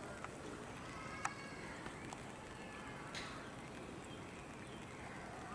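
Faint steady background noise with a few sharp clicks, the loudest about a second in, and faint wavering pitched calls.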